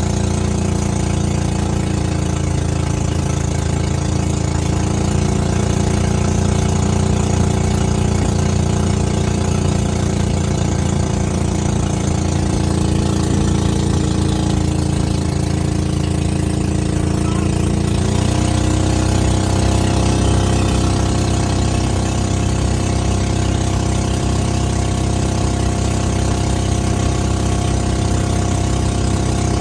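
The 13 hp engine of a small fiberglass boat running steadily during a sea trial. About eighteen seconds in, its note drops slightly and holds steady at the new speed.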